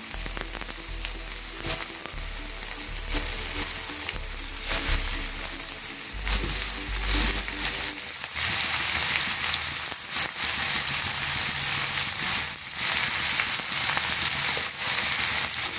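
Chopped cabbage sizzling as it fries in hot oil in a stainless steel pan, a steady hiss with a few faint clicks. The sizzle grows louder and brighter about eight seconds in.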